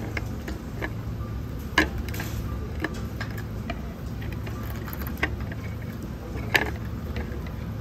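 Light clicks and taps of tableware at a meal, scattered over a steady low hum, with two sharper clicks about two seconds in and near the end.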